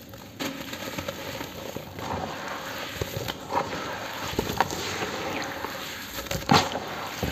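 Damp cement lumps being squeezed and crumbled by hand into a bowl: a continuous gritty crunching and crackling, with a few sharper crunches, the loudest about six and a half seconds in.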